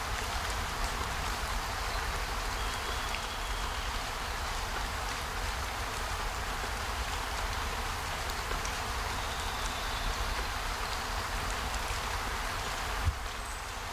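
Steady rainfall, an even hiss of drops with a low rumble beneath. A single sharp knock comes about thirteen seconds in.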